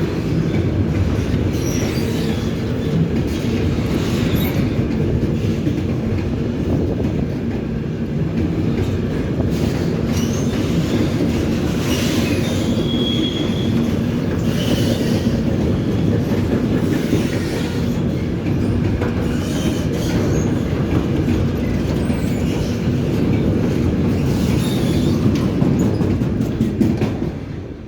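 Train passing through without stopping, its wheels rumbling steadily on the rails. There is a brief high wheel squeal about halfway through, and the noise falls away near the end as the last of the train goes by.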